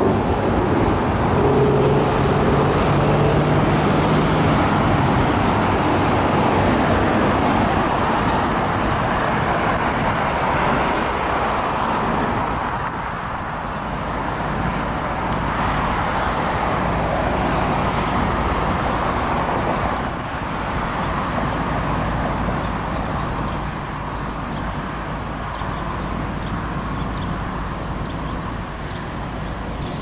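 Road traffic passing through an intersection: car and bus engines and tyre noise. A vehicle's engine hum stands out in the first few seconds, and the traffic is louder for the first dozen seconds before easing a little.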